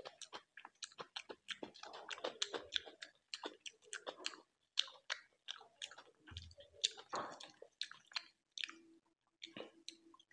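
A person chewing a mouthful of chicken and rice, with many short, wet clicks coming irregularly, several a second.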